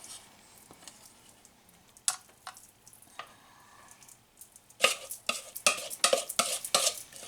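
A utensil scraping and tapping against a bowl as the last of the cornbread batter is scraped out: a couple of light clicks, then a quick run of scrapes and clinks over the final two seconds or so.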